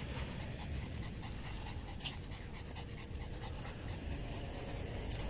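Yorkshire terrier panting as it walks, over a low rumble.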